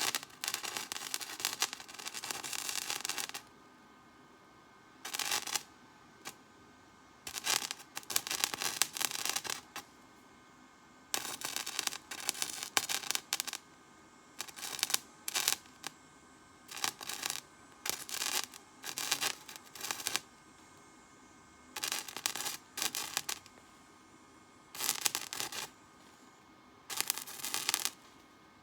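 Metal being scraped by hand: about a dozen bursts of quick rasping strokes, each burst one to three seconds long, with quiet pauses between them.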